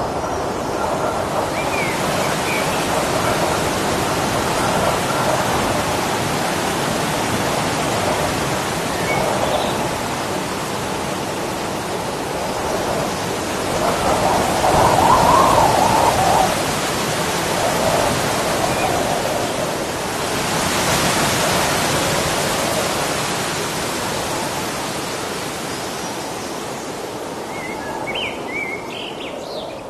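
Waterfall: a steady rush of falling water that swells a little about halfway through.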